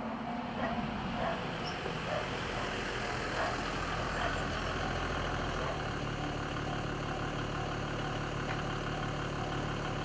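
Japanese railway level-crossing warning bell ringing in a steady repeated 'kan-kan' while the crossing is closed, fading into the background over the first few seconds. A steady low engine-like hum sets in about six seconds in.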